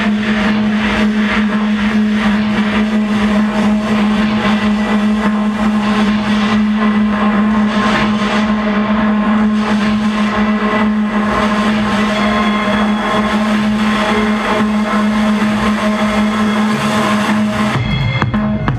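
Techno track played loud through a club sound system, in a breakdown built on a sustained buzzing synth drone; the drums come back in near the end.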